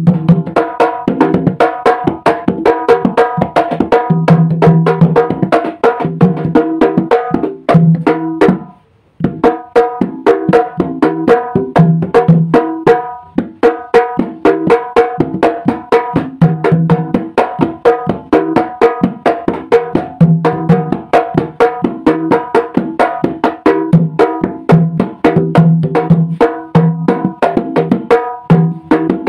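Banyuwangi kendang keplak, a rattan-laced two-headed barrel drum, played by hand in a fast, continuous rhythm of sharp slaps mixed with deeper ringing bass strokes. It breaks off briefly about eight and a half seconds in, then resumes.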